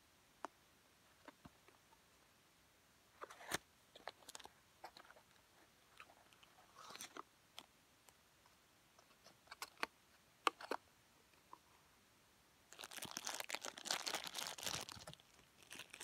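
Unboxing handling noise: scattered taps and crackles of a small cardboard box and a thin clear plastic bag, then about two seconds of dense plastic crinkling near the end as the bag is pulled off the toy truck.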